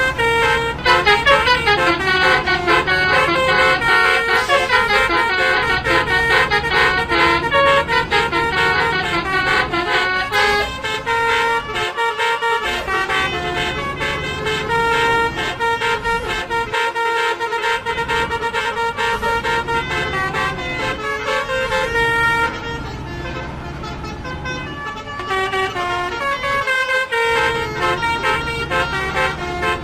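Telolet musical bus horns, several sounding at once in a horn battle, playing quick multi-note tunes over one another without a break.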